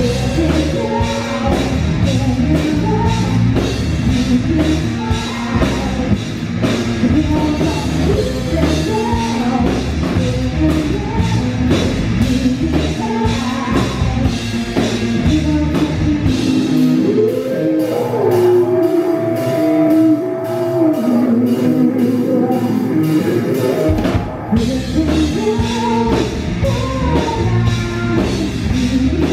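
Live rock band playing: a woman singing lead over electric bass guitar and drum kit. From about seventeen seconds in, the bass and kick drum drop out for several seconds, leaving a held, bending melody line, before the full band comes back in.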